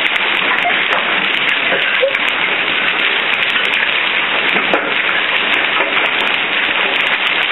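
Hail and rain pelting down steadily, a dense hiss dotted with many small sharp ticks.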